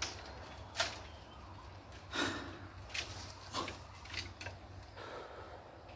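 Bamboo stalks knocking and creaking as a man climbs a bamboo clump: a handful of short, sharp knocks at irregular intervals, with a longer rustle about two seconds in.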